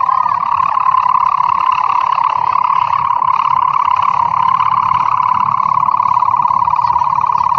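Kite hummer (sendaren/sawangan) droning in the wind aloft: one steady, high-pitched hum that wavers slightly in pitch and flutters.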